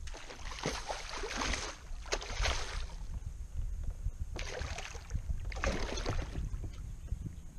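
Hooked redfish thrashing at the surface beside a kayak, splashing the water in repeated bursts over a steady low rumble.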